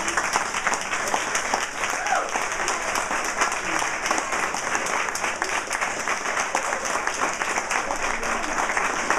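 Audience applauding: many hands clapping steadily, with a few voices underneath.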